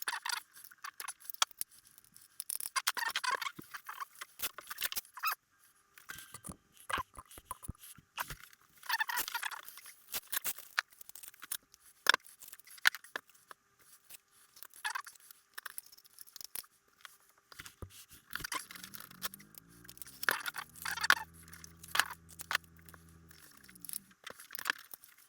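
Scattered clicks, taps and rustles of hands handling guitar pedals, Velcro and cables on a pedalboard. A low hum comes in for the last few seconds.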